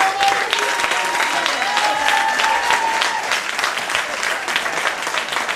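Audience applauding, dense steady clapping, with a high held tone over the clapping for about the first three seconds.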